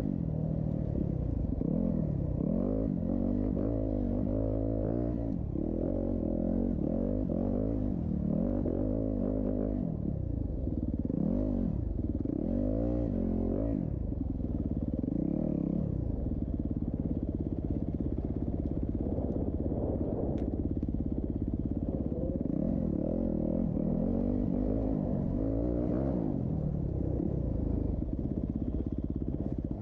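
Several off-road race engines running at once, each revving up and falling back in turn, overlapping without a break.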